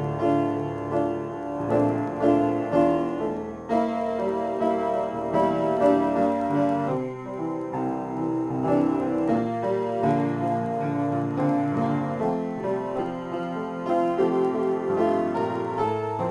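Upright piano played in a continuous improvisation, a steady flow of notes and chords with no pauses.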